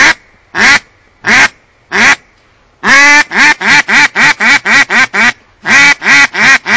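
Single-reed duck call blown with a cupped hand, giving the simple call: single quacks about every two-thirds of a second. About three seconds in comes one long quack followed by a fast run of shorter quacks, about five a second, and another run follows near the end.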